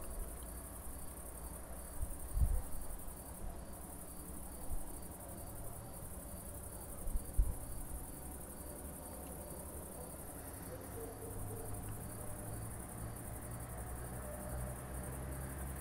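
Crickets shrilling steadily on a summer night, a continuous high-pitched chorus with a faint evenly repeating chirp beneath it. Two brief low thumps stand out, about two and seven seconds in.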